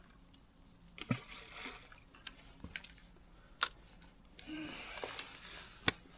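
A few sharp clicks and knocks of a fishing rod and reel being handled and set down on a rod rest, the loudest two about three and a half and six seconds in, over a faint wash of river water.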